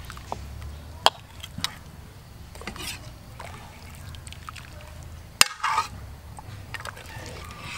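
Metal ladle scooping broth in an aluminium cooking pot, with the liquid sloshing and dripping and a few sharp clinks of metal on metal, the loudest about two-thirds of the way through.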